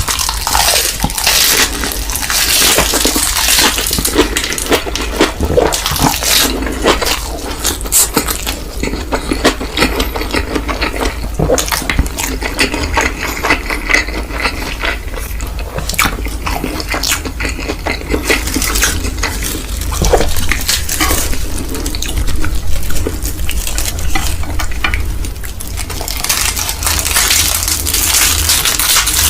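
Eating sounds of instant mi goreng noodles: wet chewing and slurping, with utensils clicking against the dish again and again.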